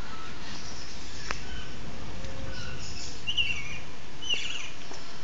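Birds chirping in short calls a few times over a steady background rush, with a single sharp click about a second in.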